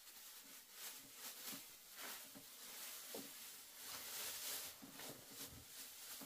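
Faint, irregular rustling and crunching noise with a few short sharp crackles scattered through it.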